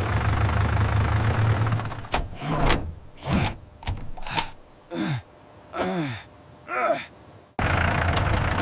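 Tractor engine running with a steady low rumble, then a series of short falling-pitch groans, about one every half second or so. The rumble cuts back in suddenly near the end.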